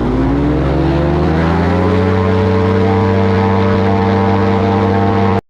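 Quicksilver ultralight aircraft's engine and propeller rising in pitch over the first two seconds as the throttle opens, then running steadily at high power.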